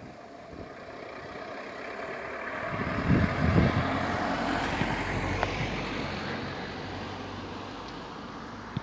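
A small Peugeot Partner van driving past, its engine and tyre noise building to a peak about three seconds in, then fading away over the next few seconds.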